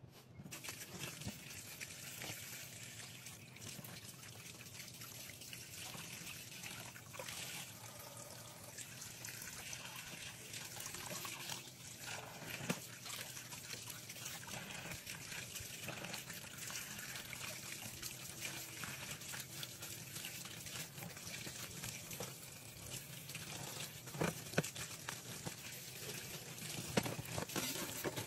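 Tap water running and splashing into a stainless steel sink as raw chicken pieces are rinsed by hand, with a few sharp knocks against the sink.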